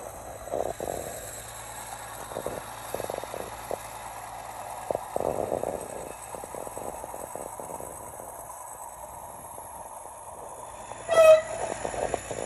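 Tractor-drawn potato digger running through the field: irregular clattering and knocking of its chain bed over the steady hum of the tractor. About eleven seconds in, a short, loud horn-like tone with several overtones sounds once.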